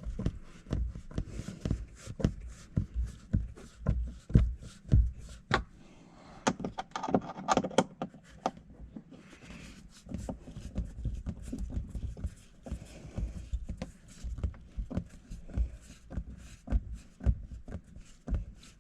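Screws being driven by hand through a plastic dash rail mount: a steady run of irregular small clicks and knocks from the screwdriver and the parts being handled, with some low thumps. Toward the end the screws seem to be just spinning in their self-made holes rather than tightening.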